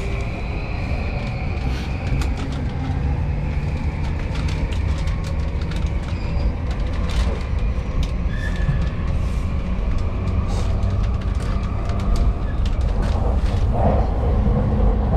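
Interior of a JR Yamanote Line commuter train in motion: a steady low rumble of wheels on rail, with many short clicks and rattles through the carriage.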